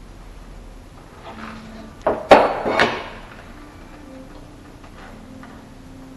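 Three sharp knocks in quick succession about two seconds in, the middle one loudest, from wooden baseboard and trim being worked.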